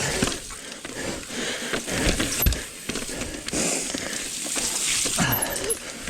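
Mountain bike rolling along a wet, muddy trail: tyre noise over the dirt with scattered clicks and knocks from the bike rattling over roots and rocks.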